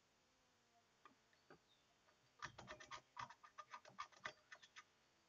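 Screwdriver tip scraping the green solder mask off cracked copper traces on a printed circuit board: faint, rapid scratching strokes that start about halfway in, exposing the traces for re-soldering.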